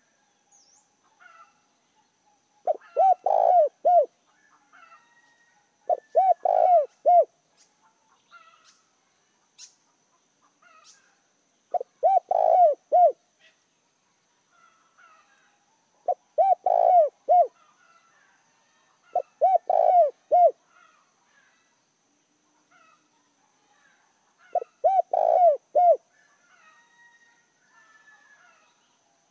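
Spotted dove cooing: six phrases of about four quick, deep coo notes each, repeated every few seconds. It is the cooing call of a caged decoy dove.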